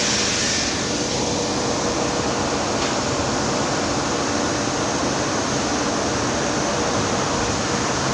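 Steady mechanical noise of running machinery or a fan, an even hiss and hum with a faint steady tone, unchanging throughout.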